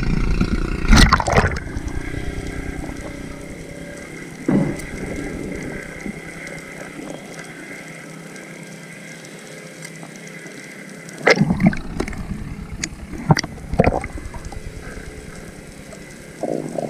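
Seawater splashing as an action camera goes under the surface about a second in, then quieter steady underwater noise, with a few sharp knocks and clicks in the last third.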